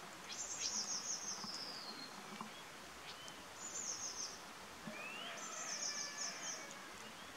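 Birdsong: three high, rapid trills of about a second each, the first falling in pitch as it ends, with a few shorter whistles between them, over a steady background hiss.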